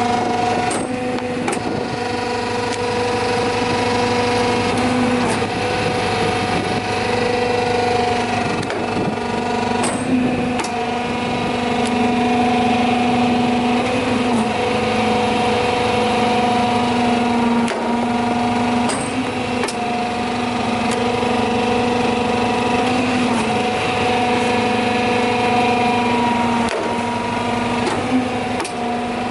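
PROTECHNIKA PBH-100 hydraulic briquetting press running, its electric motor and hydraulic pump giving a steady hum with a whine that shifts slightly in pitch every few seconds. Occasional sharp clicks and knocks sound over it.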